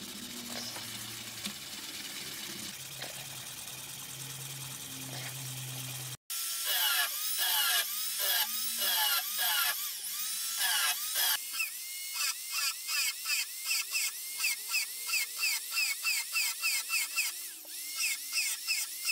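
Steel hatchet head rubbed by hand on fine abrasive paper with a steady scratching. After a short break, a narrow-belt power file grinds a spotted pattern into the polished steel in short repeated passes, its pitch rising and falling with each pass, about three a second near the end.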